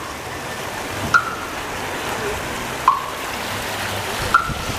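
A steady rushing noise with a short, sharp chirp about every second and a half.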